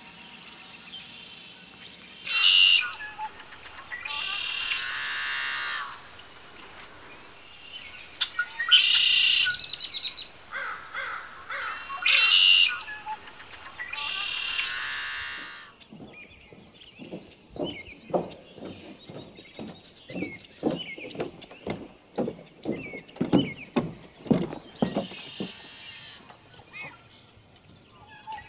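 Red-winged blackbirds calling and singing, sharp calls and buzzy trills repeated every few seconds. They cut off about halfway through, giving way to a run of short, irregular low pops, two or three a second.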